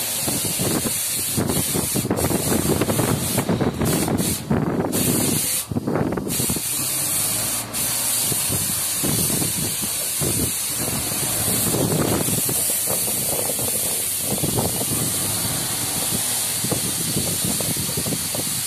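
Paint spray gun hissing steadily as paint is sprayed onto steel bridge girders, the spray cutting out briefly a few times around a quarter to a third of the way in.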